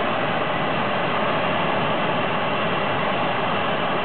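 Jet turbine engine of a turbine-powered dragster running steadily on the starting line, an even, unbroken rush of noise.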